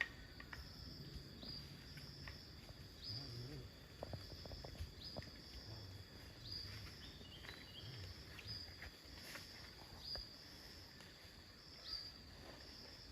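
Faint outdoor ambience with an insect chirping repeatedly: short, high calls about once a second.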